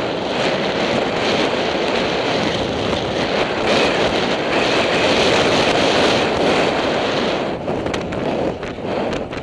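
Wind rushing over a helmet-mounted camera's microphone as the horse gallops, a loud steady roar with no clear pitch.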